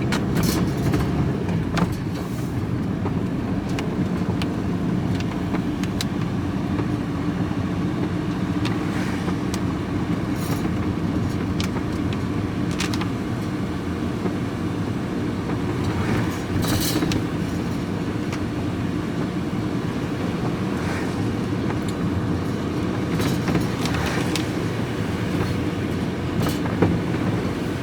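Steady engine and road noise of a vehicle being driven, with a load of aluminium bicycle wheels rattling and clicking now and then.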